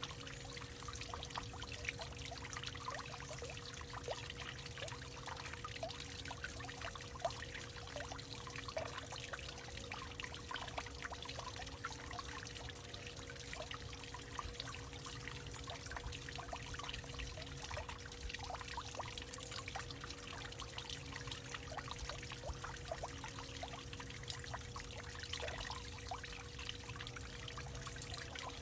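Water trickling and dripping in a hollowed-out tree: a dense, irregular run of small splashes over a faint steady hum.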